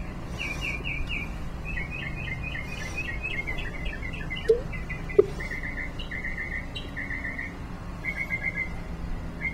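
A small bird chirping in quick repeated phrases, with two short sharp knocks about halfway through.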